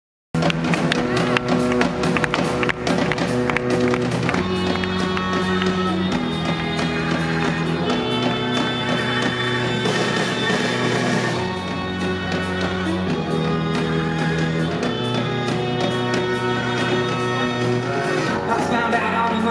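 Live rock band playing an instrumental passage with drum kit and saxophone, over sustained chords that change every couple of seconds, recorded from the audience.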